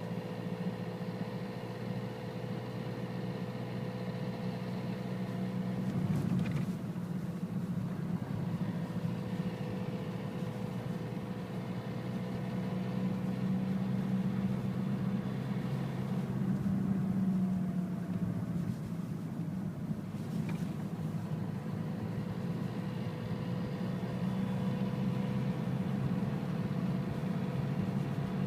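Renault Mégane 1.5 dCi four-cylinder turbodiesel idling, with a steady resonant drone and thin whining tones above the engine hum. The uploader puts this down to the fuel return line resonating, typical in frosty weather and harmless.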